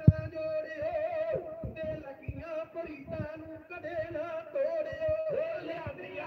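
Men singing a Sikh devotional song: one melodic line with long, wavering held notes, and a sharp low thump right at the start.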